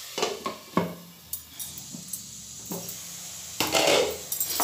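Steel-rimmed glass lid clinking against the rim of a nonstick kadai as it is set on and shifted: several sharp clinks with a short ring. Near the end, a brief louder rush of hiss as the lid comes off the frying spinach masala.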